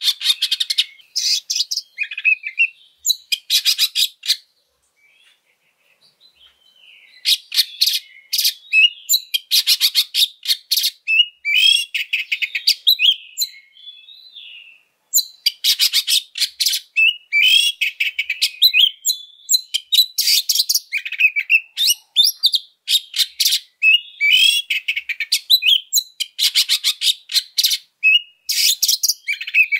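Oriental magpie-robin singing loudly in its aggressive full song: fast runs of repeated notes and varied rough phrases of mimicry, the kind that keepers play to set off other magpie-robins. The song stops for a couple of seconds about five seconds in, then comes back and runs almost without a break from about fifteen seconds in.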